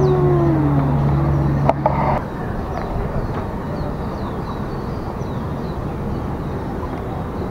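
Outdoor ambience: a steady low hum for the first two seconds cuts off suddenly with a click, leaving an even background hiss. Faint, short bird chirps repeat throughout.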